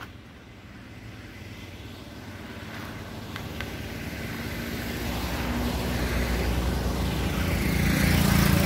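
A road vehicle approaching, its engine drone growing steadily louder.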